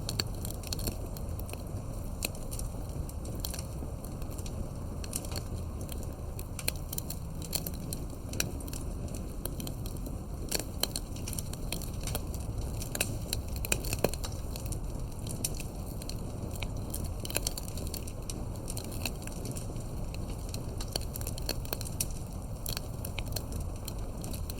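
Campfire burning: wood crackling with irregular sharp pops over a steady low rumble of the flames.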